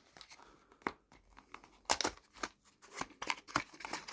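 A small cardboard pocket-knife box being handled and opened by hand: scattered light clicks and taps of the card, with short papery scrapes near the end.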